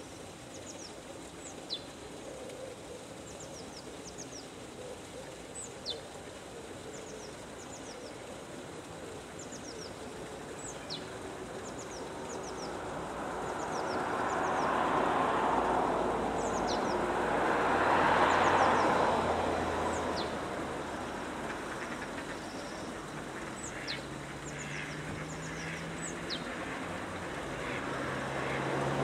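Outdoor ambience of birds calling with short, high, falling chirps, over the rush of passing road traffic, which swells twice around the middle. A low engine hum rises near the end as another vehicle approaches.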